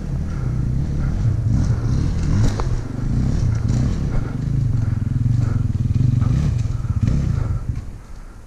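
Dirt bike engine running steadily at low revs, its sound dropping away near the end.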